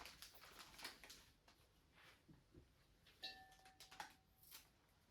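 Faint snips and clicks of scissors cutting the ends off fresh flower stems, with a brief ringing tone about three seconds in.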